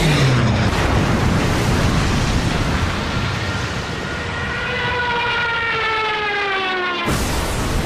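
A sudden blast, then rumbling noise. From about three seconds in, an aircraft's whining engine slowly falls in pitch as the plane dives, until the sound cuts off abruptly near the end.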